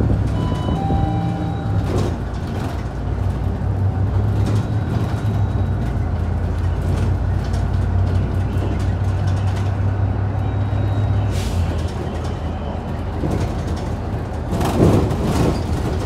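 Hyundai Super Aero City city bus running as it drives, heard from inside the cabin near the front: a steady low engine hum that eases off about two-thirds through. Near the start a short two-tone electronic chime sounds, the bus's stop-request signal, and a louder rattling hiss comes near the end.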